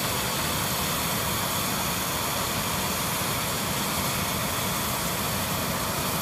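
Jet airliner's engines running steadily as it taxis past: an even, unbroken noise with no change in level.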